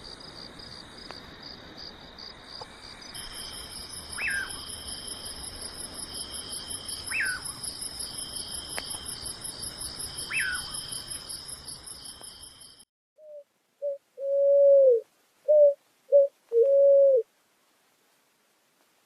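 Insects trilling steadily in high pulsing bands, with a bird giving a short falling call three times, about every three seconds. This cuts off abruptly about 13 s in, followed by a series of loud, clean tones, several short and two held longer with a dip at the end.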